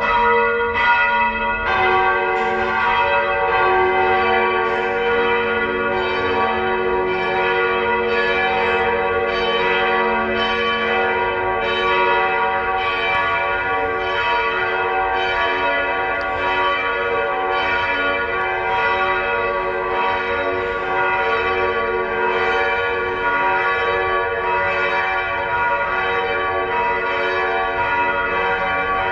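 Church bells ringing in a peal, several bells swinging and striking about once a second, their tones overlapping into a continuous ringing.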